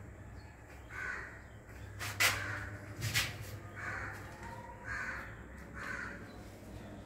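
Crows cawing repeatedly, several short caws about a second apart. Two sharp clicks come a little after two and three seconds in, as the metal shower head is turned onto its arm by hand.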